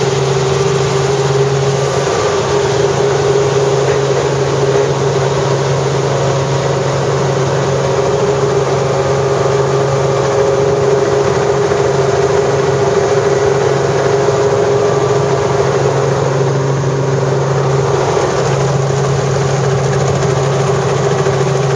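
Helicopter engine and rotors running steadily, heard from inside the cabin: a loud, even drone with steady low hums.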